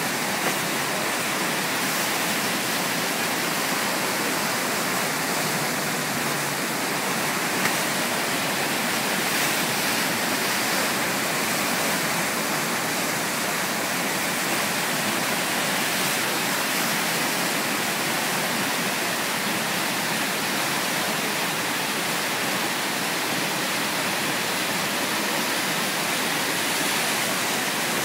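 Whitewater of a standing river wave, churning and rushing steadily at a constant loud level.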